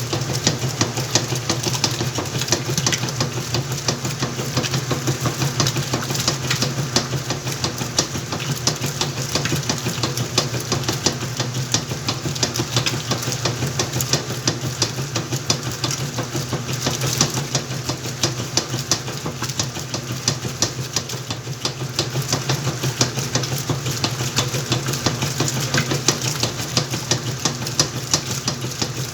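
Whirlpool washing machine running through its cycle: a steady motor hum with a fast, continuous clatter of ticks.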